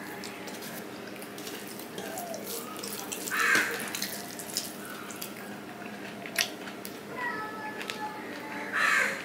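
Hand-eating sounds: fingers squishing and mixing rice with mutton curry on a steel plate, with wet chewing and small clicks. A crow caws loudly about three and a half seconds in and again near the end.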